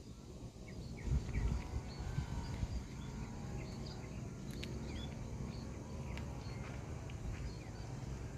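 Small birds chirping: many short, high calls scattered throughout, over a steady low rumble.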